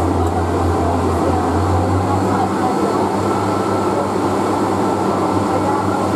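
Inside a Class 142 Pacer diesel railbus on the move: a steady low drone from its underfloor diesel engine over the continuous rumble of wheels on the rails.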